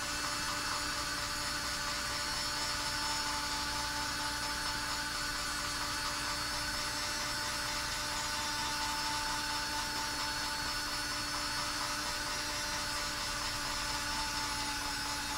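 Small battery-powered motor of a rotating marshmallow toaster whirring steadily as it turns its three-prong stick, its batteries running down, over a steady hiss.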